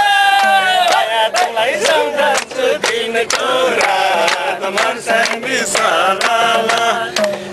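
A group of men singing a song together in chorus, several voices holding wavering notes, with sharp hand claps scattered through it.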